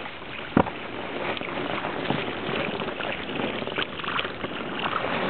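Baitcasting reel being cranked to bring in a lure: a continuous noisy whir with small ticks that grows louder after the first second. A single sharp knock about half a second in.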